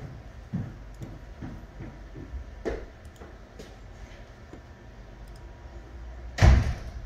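A few light knocks, then one heavy, deep thump near the end, over a steady low hum.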